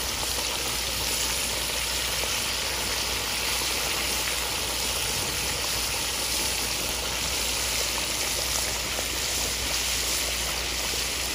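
Whole flounder deep-frying in a pot of hot vegetable oil, the oil sizzling and bubbling in a steady hiss.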